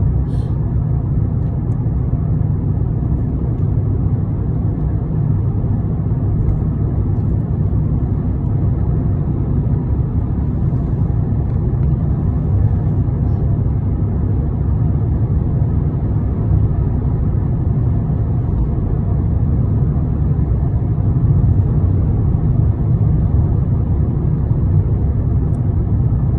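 Steady low rumble of a moving road vehicle, unchanging throughout.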